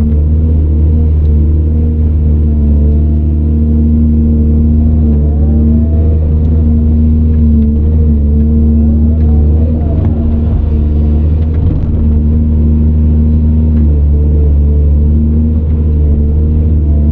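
CAT 395 excavator's diesel engine running steadily under load, its pitch briefly wavering up and down about midway as the hydraulics work.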